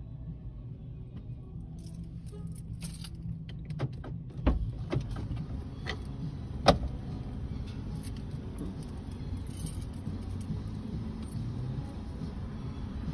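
Keys jingling and small objects handled inside a vehicle's cab, with scattered clicks and knocks (the sharpest about seven seconds in) over a steady low rumble.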